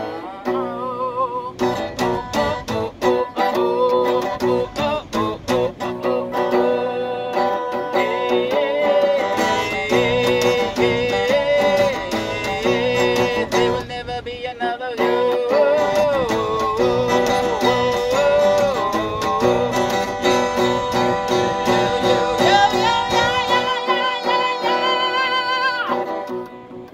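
Acoustic guitar strummed with a pick, with a man's voice singing a wavering melody over it in several stretches. The playing fades out just before the end.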